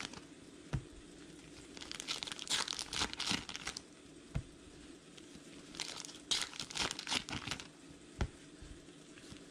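Trading-card pack wrapper crinkled and torn open by hand, in two main bursts of crinkling, about two seconds in and again around six seconds in, with a few short taps between.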